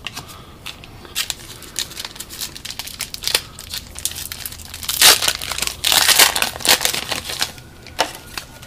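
Foil wrapper of a trading card pack crinkling and tearing as it is opened, loudest and busiest in the second half.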